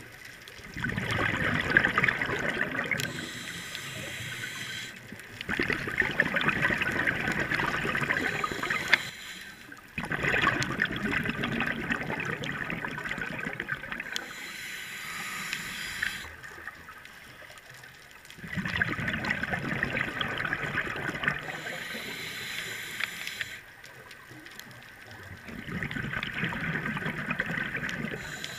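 Scuba diver breathing through a regulator underwater: five bubbly exhalations of two to four seconds each, alternating with quieter inhalations through the demand valve that carry a thin hiss.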